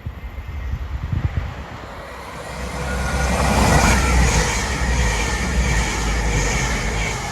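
A train passing close by through the station, its rumble and wheel noise building to loudest about four seconds in and holding until near the end.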